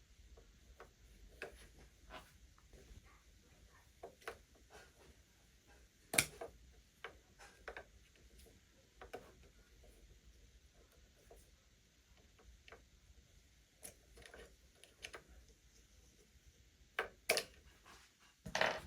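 Irregular small clicks and taps of hands working the plastic parts of a ring light while pulling out its controller, with a sharper knock about six seconds in and a few louder clicks near the end.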